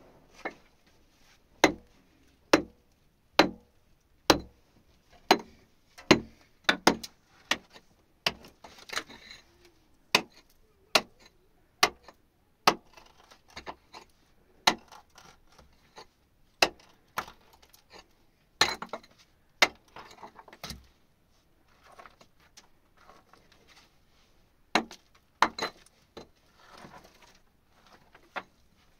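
A long series of sharp knocks with a clinking edge, about one a second at first, then more irregular, with pauses and softer scraping between strikes.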